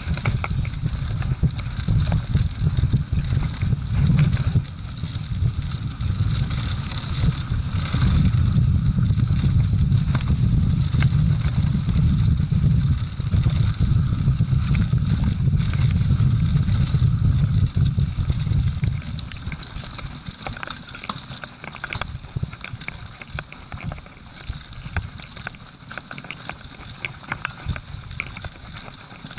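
Mountain bike riding a dry dirt and leaf-covered trail: wind rumbling on the camera's microphone, with the rattle and clatter of the bike and its tyres over the rough ground. About eighteen seconds in the wind rumble drops away, leaving the crackle of the tyres on dry leaves and sharp clicks from the bike.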